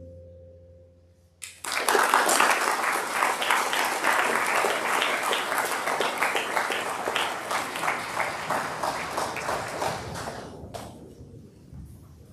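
Audience applauding: a held sung chord dies away, then clapping breaks out about a second and a half in, stays thick for most of the stretch and thins out near the end.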